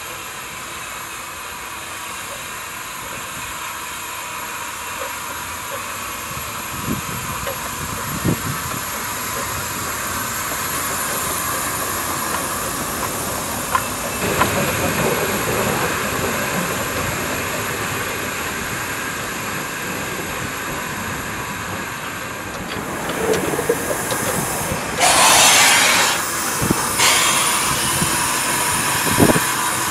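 South African Railways NGG16 Garratt No. 87 steam locomotive with steam hissing steadily from low down near its cylinders, and a few metallic clanks. About 25 seconds in comes a louder rush of steam lasting about a second.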